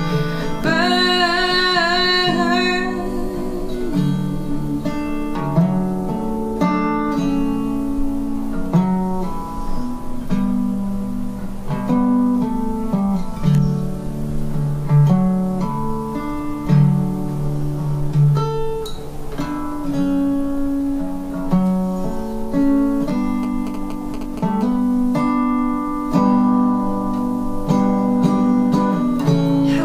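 A resonator guitar is picked note by note in an instrumental passage. A woman's held, wavering sung note opens it and fades out about three seconds in.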